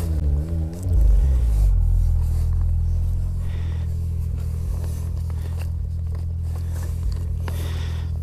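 Snowmobile engine running, its pitch wavering for the first second or two and then settling into a steady low idle.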